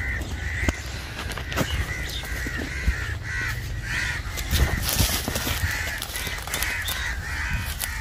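A bird calling over and over in short, evenly repeated notes, about two or three a second. Footsteps and rustling through grass and weeds make scattered clicks beneath it.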